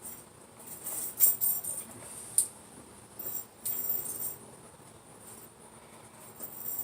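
Metal wallet chain jingling and clinking as it is handled and taken off, in several short, uneven spells, loudest about a second in and again around four seconds in.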